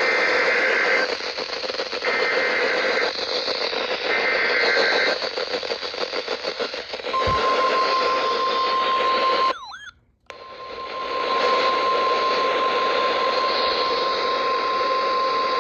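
NOAA Weather Radio emergency alert signal received with steady radio hiss underneath: three one-second bursts of the warbling two-tone SAME digital header code, then, about seven seconds in, the steady 1050 Hz warning alarm tone, which drops out briefly about ten seconds in and resumes. Together they mark the start of a new alert message.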